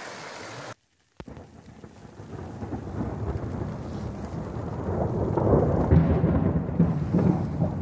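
Thunder rumbling, building to its loudest about two-thirds of the way through, with a patter of rain over it.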